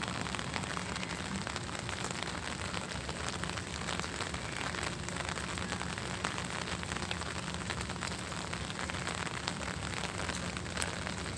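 Heavy rain falling steadily, a continuous hiss with a dense patter of individual drops.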